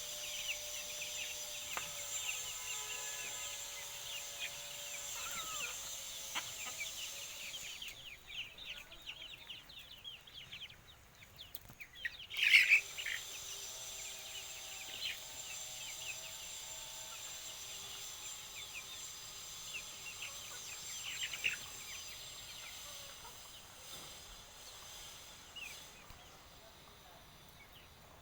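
Kadaknath chickens peeping and calling, with many short high peeps and some longer, lower drawn-out calls. One loud squawk comes about halfway through, over a steady high-pitched background tone.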